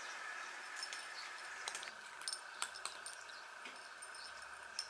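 Cats eating dry kibble from ceramic bowls: faint, irregular crunches and small clicks of pellets against the bowls.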